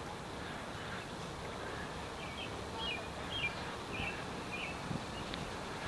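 A bird calling in a quick run of about six short, high chirps in the middle, over steady outdoor background noise.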